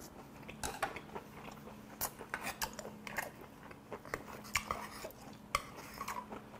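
A wooden rice paddle scraping and clicking against a small stainless steel rice bowl as rice is scooped out, in a string of irregular light clicks.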